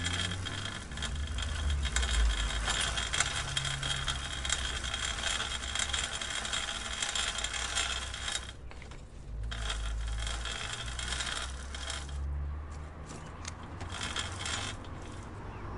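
Bicycle chain clicking in a rapid, continuous ticking over a low rumble. It breaks off briefly about eight seconds in, resumes, then thins to scattered clicks near the end.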